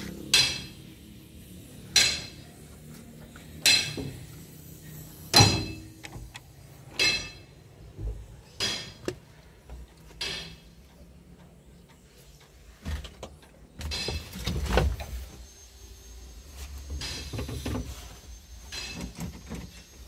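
Ringing metal clangs, as of metal being struck, about one every second and a half, growing fainter and less regular after about ten seconds. Later there are scattered knocks and a brief low rumble.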